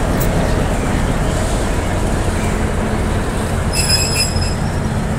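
Diesel locomotive running past at close range, its engine giving a steady low rumble over the noise of wheels on the rails. A short high-pitched wheel squeal rings out just before four seconds in.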